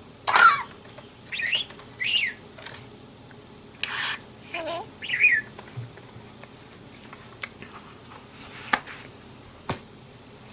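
Pet budgerigar chirping in a string of short calls that glide up and down over the first half, then falling mostly quiet apart from a couple of faint clicks.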